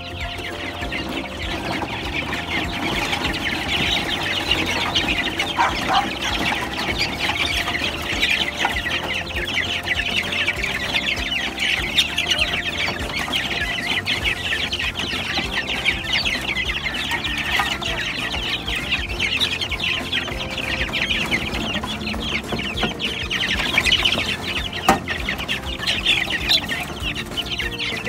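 A flock of chicks peeping without pause, many high cheeps overlapping, while being fed.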